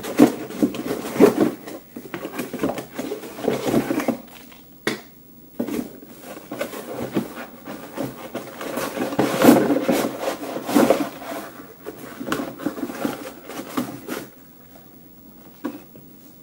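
A tool-kit box and its packaging being handled and unpacked: irregular rustling, scraping and light knocks that die away about fourteen seconds in.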